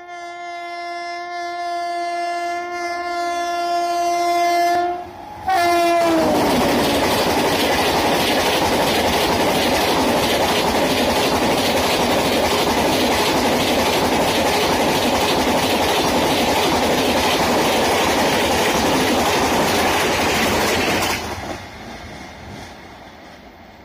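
Shatabdi Express passing through a station at about 130 km/h. Its locomotive horn sounds one long steady blast for about five seconds, growing louder as it approaches, and the pitch drops as the locomotive goes by. The coaches then rush past loudly for about fifteen seconds; the noise cuts off sharply as the last coach clears and fades as the train recedes.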